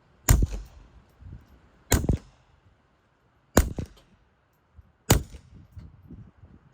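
Kel-Tec P17 .22 LR pistol fitted with a SilencerCo Sparrow suppressor, firing Federal AutoMatch rounds: five suppressed shots about a second and a half apart, the last at the very end. There is no sonic crack, because the rounds leave the pistol's short barrel below the speed of sound.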